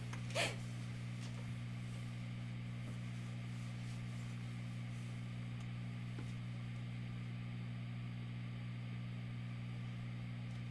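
Steady low hum with a faint hiss underneath, unchanging throughout: room tone.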